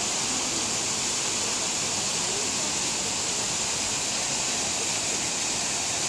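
Nunobiki Falls, a tall waterfall plunging into its pool: a steady, hissing rush of falling water with no breaks.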